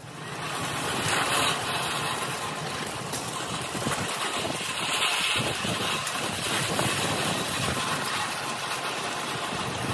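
Red steel-mesh utility wagon rolling and rattling over pavement as a power wheelchair tows it, a steady rolling noise with constant fine rattle.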